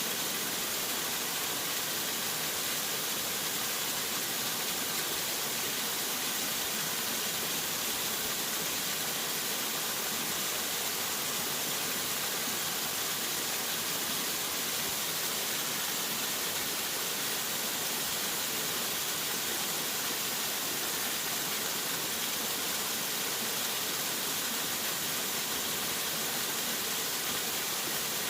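Waterfall rushing in a steady, even hiss of falling water.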